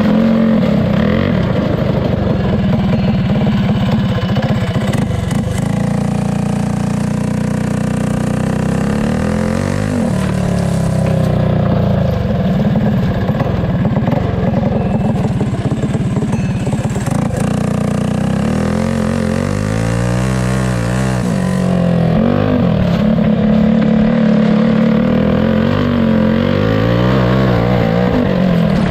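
Heavily modified 212 cc clone go-kart engine, a single-cylinder four-stroke that has been bored out, ported and polished, running hard under load. Its pitch drops and climbs back up several times as the kart backs off and accelerates again.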